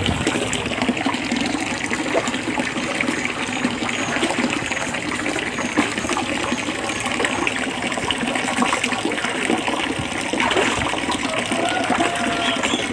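Water gushing steadily from a pipe in a concrete wall and splashing into shallow water.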